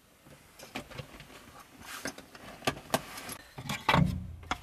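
Handling gear: a canvas bag rustling, with scattered small clicks and knocks, then a heavier thump about four seconds in as a wooden board is lifted and moved.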